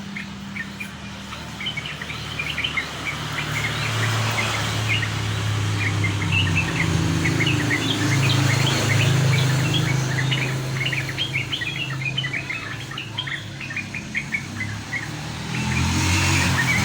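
Yellow-vented bulbuls (trucukan) chirping in a quick, dense run of short overlapping notes, over a steady low engine drone that swells in the middle.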